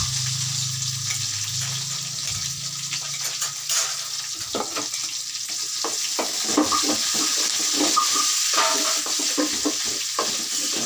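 Sliced onions sizzling in hot oil in a metal kadai. From about three seconds in, a wooden spatula scrapes and stirs them against the pan in repeated short strokes. A low hum runs under the sizzle for the first couple of seconds.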